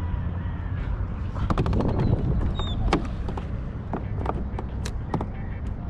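Wind rumbling on the microphone, with scattered sharp clicks and knocks from the fishing rod and line being handled as a small bass is worked free and reeled in; a quick run of clicks comes about one and a half seconds in.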